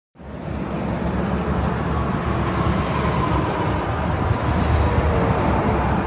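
Steady freeway traffic: a continuous rush of tyre and engine noise from cars and trucks passing, with a faint whine that slowly falls in pitch.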